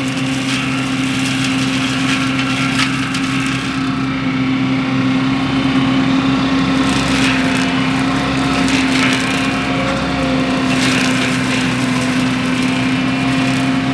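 Wacker Neuson SM120 mini skid steer running steadily with its Baumalight MS530M forestry mulcher head spinning: an even machine hum with a few short crackles through it.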